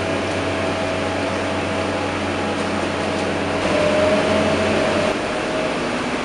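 Cabin noise inside a Scania K230UB single-deck bus on the move: a steady drone from its Scania DC9 diesel engine and drivetrain under an even hiss. A higher whine rises slightly and grows louder, then drops away about five seconds in.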